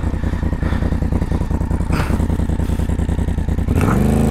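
Adventure motorcycle engine idling with an even pulsing beat, then the throttle is opened near the end and the revs rise.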